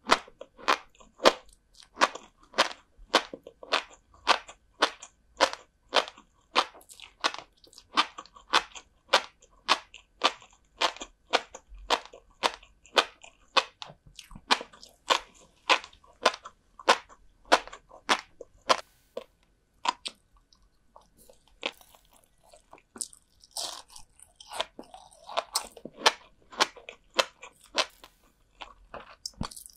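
Salted herring roe (kazunoko) being chewed: a steady, crisp crunch about two to three times a second. About two-thirds of the way in, it thins to softer, irregular clicks and rustles.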